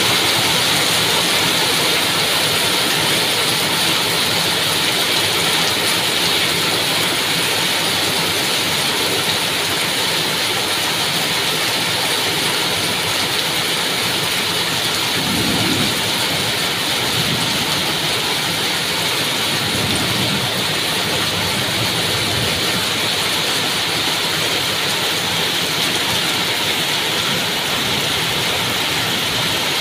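Heavy tropical downpour: a steady, even hiss of rain falling on trees, leaves and roofs. A low rumble comes and goes about halfway through.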